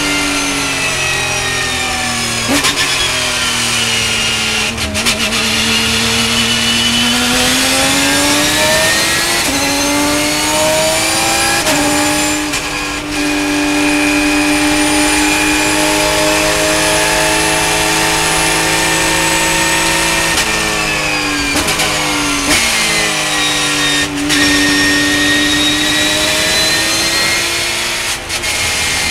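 Porsche race car's engine heard from inside the cabin at racing speed, revs dipping and climbing through corners. There is a sharp upshift about twelve seconds in, a long steady pull, then the revs fall with quick gear changes about two-thirds through and climb again near the end.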